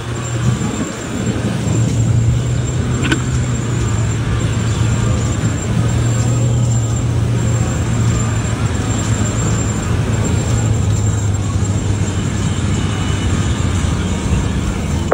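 Mahindra Thar's engine running with a steady drone as the SUV drives through a soft, harvested paddy field, its tyres churning the straw and dirt.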